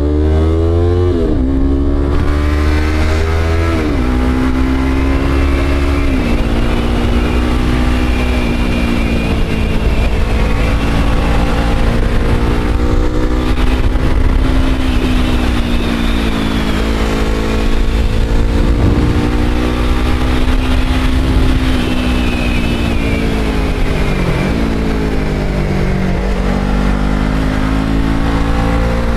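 Motorcycle engine under way, climbing in pitch and dropping sharply three times in the first few seconds as it shifts up through the gears, then running fairly steady at cruising speed. Near the end it eases off and picks up again, over a low wind rumble on the microphone.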